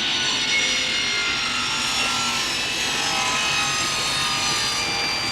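Saw cutting through wood, a loud steady rasping racket with thin ringing tones that slowly slide down in pitch as the blade works.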